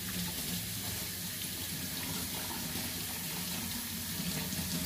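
Kitchen faucet running steadily, water from the pull-down spray splashing over hands and a cuttlefish head being rinsed into a stainless steel sink, with a faint low hum beneath.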